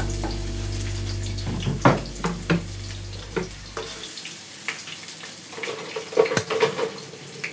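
Water running and splashing, with scattered clicks and knocks of things being handled. Steady background music underneath stops about four seconds in.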